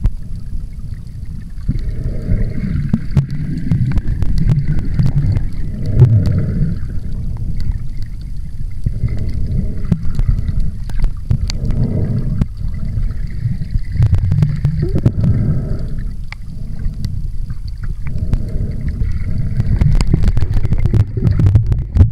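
Water moving around a camera held underwater by a swimmer: a low, continuous rumble that swells and eases every couple of seconds, with scattered faint clicks.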